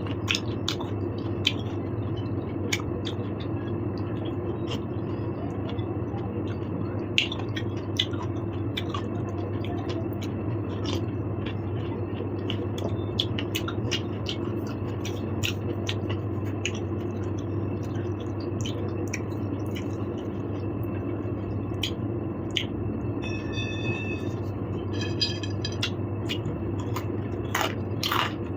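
A person eating a meal of noodles and rice close to the microphone: chewing, with frequent short sharp clicks and scrapes, over a steady low hum. About two-thirds of the way through, two brief high-pitched tones sound.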